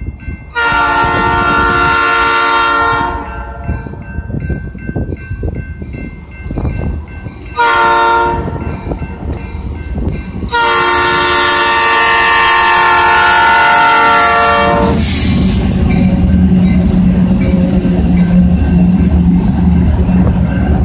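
Diesel locomotive air horn sounding for a grade crossing: a long blast, a short one about seven seconds later, then another long blast lasting about four seconds, with the crossing's electronic bell chiming underneath. About fifteen seconds in the locomotive reaches the crossing, and the drone of its diesel engine and the rumble of the train take over.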